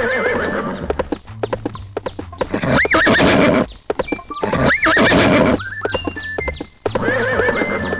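Horse sound effects: hooves clip-clopping in a steady patter, with two loud neighs about three and five seconds in.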